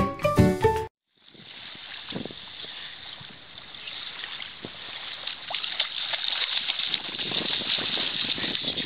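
Music cuts off suddenly about a second in. Then shallow sea water splashes and sloshes with a steady rushing hiss as a kangaroo swims through it, growing louder toward the end.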